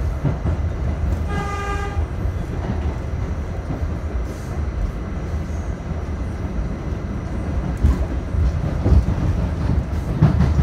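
An R68A subway car running along the track, heard from inside the car as a steady low rumble of wheels on rail. About a second and a half in, a short pitched tone sounds for just over half a second. A few sharp clacks over rail joints come near the end.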